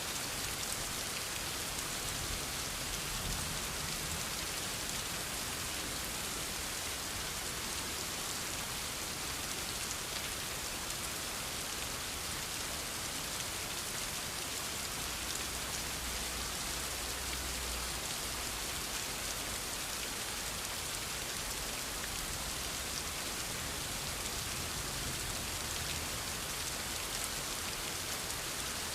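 Steady rain: an even, unbroken hiss of falling drops.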